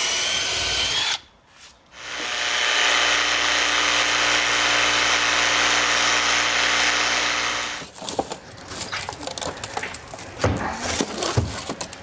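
A cordless drill runs briefly, then after a short pause a Milwaukee Fuel cordless jigsaw cuts steadily through a cabinet panel for about six seconds and stops. Irregular knocks and rattles follow as the cut piece is worked loose.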